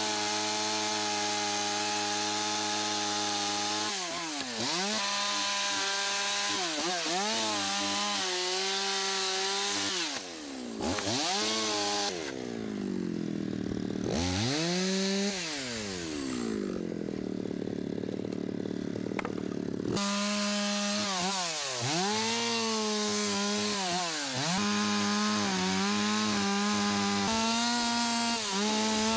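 Chainsaw cutting into wood, its engine running high, the pitch dropping and recovering again and again as the chain bites and is eased off.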